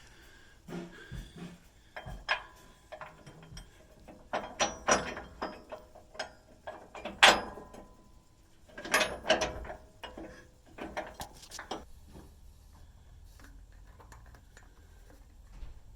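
Hand tools clicking and clanking on steel, with a socket wrench working the bolts of a fifth-wheel hitch mounting bracket under a pickup bed. The sounds come in bunches of sharp metallic clicks, the loudest clank about seven seconds in, and die down after about twelve seconds.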